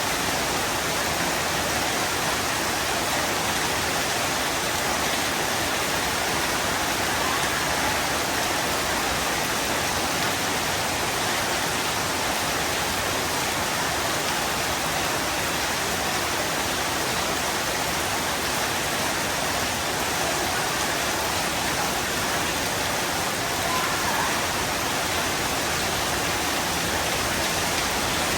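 Heavy rain pouring steadily, an even, unbroken hiss of falling water with no thunder.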